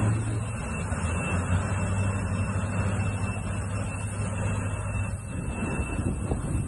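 An engine running steadily, with a constant low hum under a broad rushing noise and a faint thin whine above.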